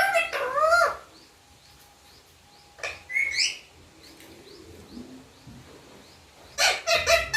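Indian ringneck parrot calling in short bursts: a bending, squawky call at the start, another about three seconds in, and a quick run of several sharp notes near the end.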